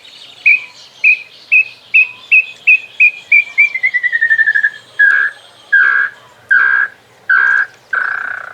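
Tinamou (nambu) calling: a series of short, clear whistles that speed up and fall slightly in pitch into a rapid trill about four seconds in. It then gives way to five longer, lower whistles about three-quarters of a second apart.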